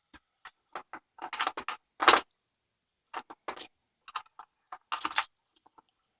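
Key going into and turning in a heavy Tesa 5-pin padlock to open it: a series of short metallic clicks and clacks.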